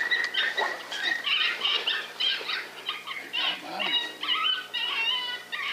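Coyotes yipping and howling: many short, high, wavering calls overlapping one another in a chorus.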